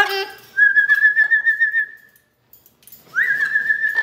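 Amazon parrot whistling: a quick rising call, then a long whistle held on one pitch with a fast warble. After a pause about halfway, a second whistle sweeps up and holds with the same warble.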